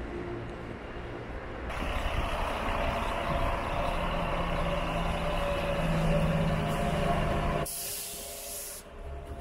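City bus at the stop: a steady running drone with a low hum that grows louder, then a short burst of pneumatic air hiss about eight seconds in from its air brakes and door system.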